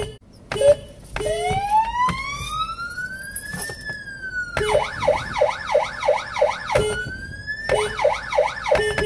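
Police-style electronic siren, fitted to a car, cycling through its tones. After a brief cut-out and a short blip, a slow wail rises and then falls. A fast yelp of about three sweeps a second follows, then a short rise, and the fast yelp again.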